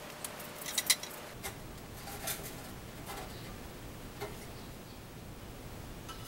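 Scattered light clicks and taps, the loudest pair about a second in: hand tools and metal parts being handled at a bicycle's rear wheel.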